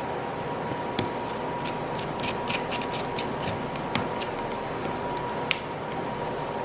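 Scattered small clicks and rubbing from hand work on a Milwaukee Hole Hawg drill as the brush plug is fitted back over a new motor brush. A steady hiss and a faint steady tone run underneath.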